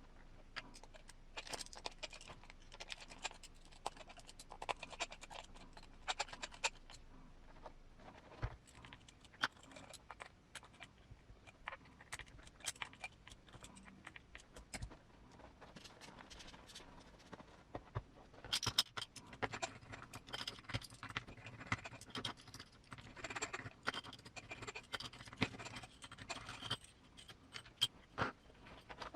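Irregular small clicks, scrapes and rustles of hands working rubber and plastic parts, as an RC crawler tire and its foam insert are fitted onto a beadlock wheel. The handling gets busier from about two-thirds of the way in.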